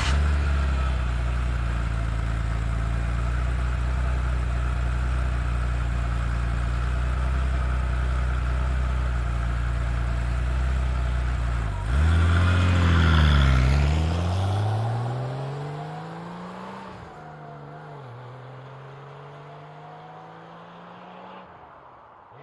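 Porsche 930's air-cooled turbocharged flat-six idles steadily, then blips and pulls away. Its pitch climbs twice, each climb ending in a sudden drop as it shifts up, and the sound fades as the car moves off.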